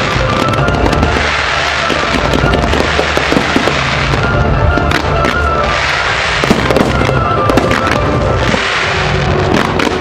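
Aerial fireworks bursting and crackling in dense, rapid succession over loud show music played through the display's sound system.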